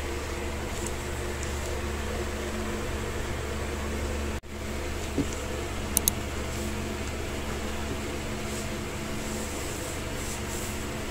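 Steady mechanical hum, of the kind a room fan or air conditioner makes, with a few light clicks and rustles of a tablet and its plastic-wrapped box being handled. A sharp double click comes about six seconds in, and the sound cuts out for an instant shortly before it.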